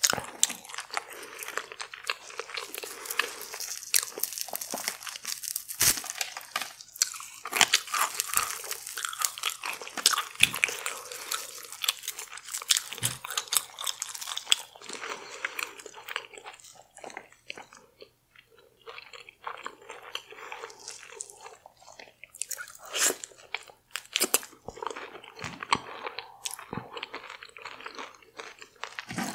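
Close-miked eating: wet chewing and crunching of seafood coated in fried Doritos crumbs and sauce, a steady run of irregular crackles and smacks that thins out for a few seconds past the middle.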